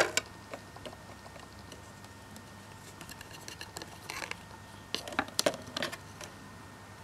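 Soft handling noises of a card menu and plastic toy: a light tap at the start, a brief paper rustle about four seconds in, then a few quick clicks around five seconds.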